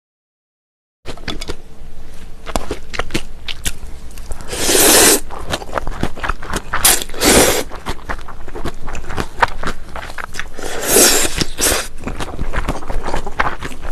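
Close-miked eating of mulhoe with thin wheat noodles: three loud slurps of noodles and cold broth, with wet chewing and crunching of raw fish and vegetables between them. The sound is cut out for about the first second.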